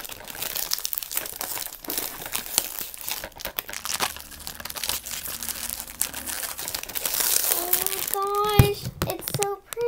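Clear plastic wrapping crinkling and rustling as it is handled and pulled off a perfume box. A child's voice is heard briefly near the end, with a single knock just before it.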